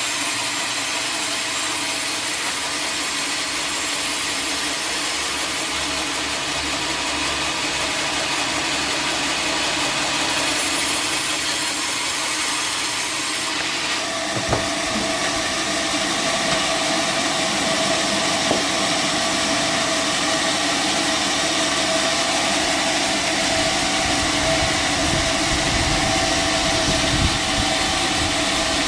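Sawmill saw cutting through a log with a steady grinding noise. About halfway through the sound changes to a steadier hum with a low rumble, like the saw's motor running on.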